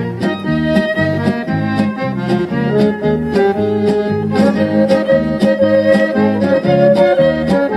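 A record playing on a restored Philips 528 record player through its own built-in 6-inch speakers: music with a steady beat.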